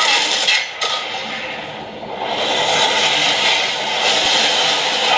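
Fight-scene sound effects: a sudden burst of clashing and scraping, then a long steady rushing din of battle.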